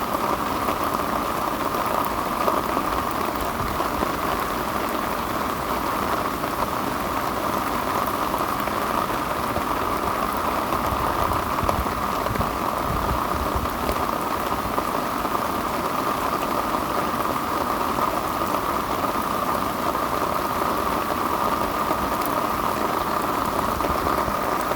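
Heavy rain pouring down steadily and evenly, a dense hiss of drops.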